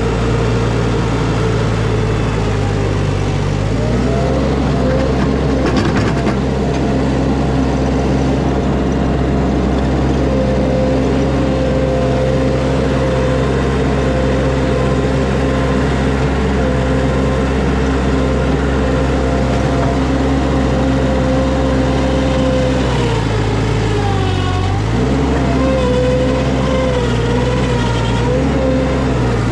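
Skid steer's diesel engine running hard at high revs while digging, its speed sagging and recovering about three seconds in and again near the end.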